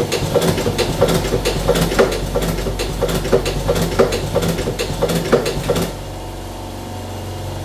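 A machine running with a regular clatter, about three knocks a second, over a steady low hum. The clatter stops about six seconds in and the hum carries on.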